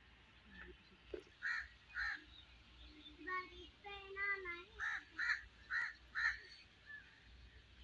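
A crow cawing: two harsh caws about a second and a half in, then four more in quick succession from about five seconds in. A high-pitched voice is heard briefly between them.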